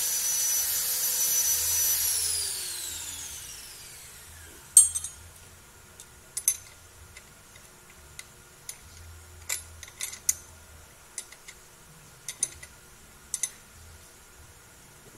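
A power tool running with a steady whine, then released and spinning down, its pitch falling over about two seconds. Then a series of sharp metallic clinks and clanks of hand tools and parts being handled.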